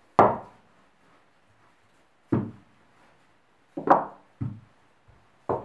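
Wooden rolling pin knocking on the countertop while gingerbread dough is rolled out, five separate wooden knocks at uneven intervals, the last near the end.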